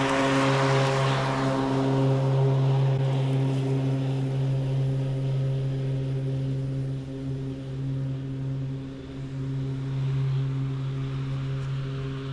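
Toro Revolution Grandstand battery-powered mower running with a steady electric hum of several even tones, its cutting blades adding a hiss that is strongest for about the first two seconds. The hum dips briefly twice, around seven and nine seconds in.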